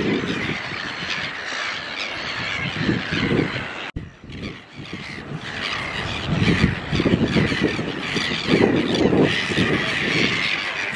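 A large gull colony calling, a dense, continuous chorus of many overlapping squealing cries, with wind buffeting the microphone in uneven low gusts. The sound drops out briefly about four seconds in.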